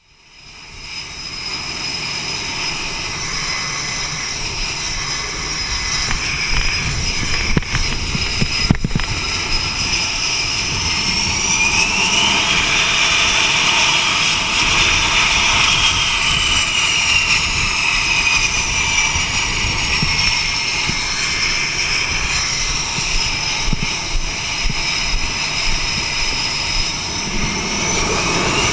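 Twin jet engines of an F/A-18 running at the catapult, a loud steady jet noise. Its high whine rises in pitch about 11–13 seconds in, falls away over the next few seconds, and begins rising again near the end; a single knock is heard about nine seconds in.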